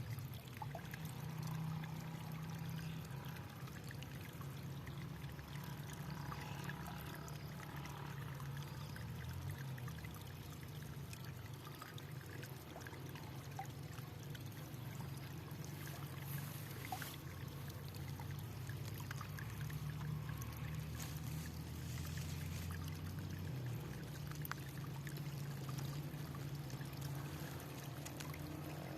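Water flowing and trickling steadily, with a low rumble underneath.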